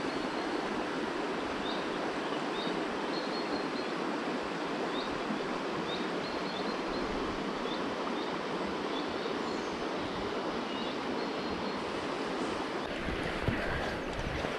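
Shallow river water running steadily over a riffle, with a small bird repeating short high chirps about once a second. A low rumble comes in near the end.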